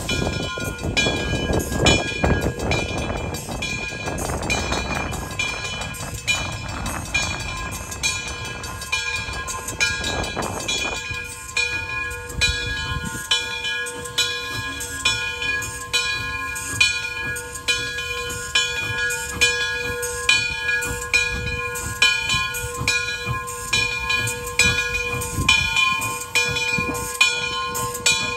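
Frisco 1630, a 2-10-0 steam locomotive, rolling slowly past with steam hissing from around its cylinders for the first ten seconds or so, while a bell rings steadily at about one and a half strokes a second.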